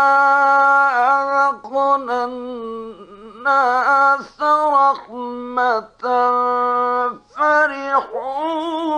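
A man's voice reciting the Quran in the melodic, drawn-out mujawwad style: a long held note at the start, then a run of short ornamented phrases with brief breaths between them.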